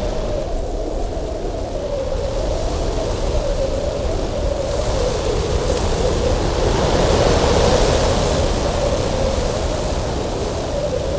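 Cold winter wind blowing hard and steadily, with a wavering low whistle running through it, swelling into a stronger, hissier gust about halfway through.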